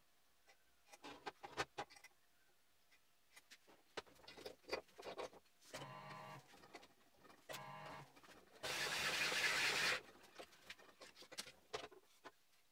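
Metal workshop parts clinking and knocking as a motorcycle cylinder is handled and set up under a drill press with a cylinder hone. Twice, around the middle, a motor hums briefly, then a loud hiss lasts about a second.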